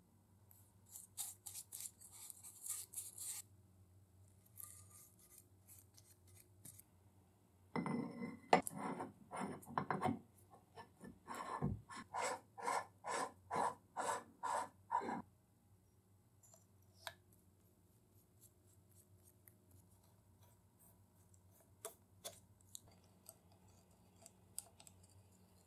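Metal parts of a Gressel bench vise being handled and fitted: light clicks and scrapes, then a run of even rasping metal-on-metal strokes, about two a second, as a threaded steel bushing is worked onto the spindle, then a few scattered small clicks.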